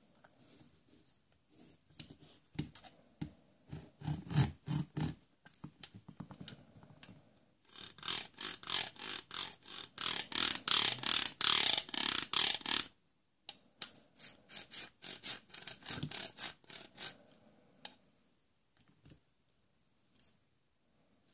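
Quick, even scraping strokes, about four a second, from a plastic toy tool being worked. They come in runs of a few seconds with short stops, loudest in the middle run.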